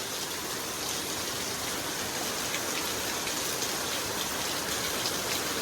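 Steady hiss of heavy squall-line rain falling, with individual drops tapping now and then.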